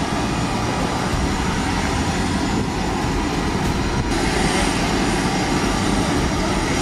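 Steady jet aircraft engine noise on an airfield flight line: a constant rush with a faint high whine.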